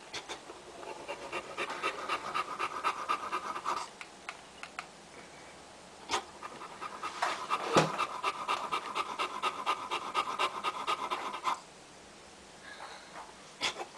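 A Boxer bitch in labour panting fast and hard, in two long spells with a pause of about two seconds between them. A single short thump comes in the middle of the second spell.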